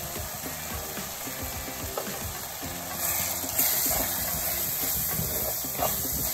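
Onion-tomato masala sizzling in oil in a clay pot, with a wooden spatula scraping and stirring spice powder into it. The sizzle grows louder about three seconds in as the stirring begins.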